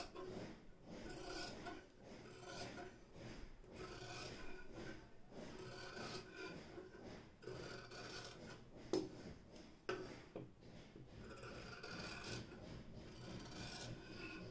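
Scissors cutting through doubled fabric along a curved line: a steady run of snips, about one a second, with two sharper clicks about nine and ten seconds in.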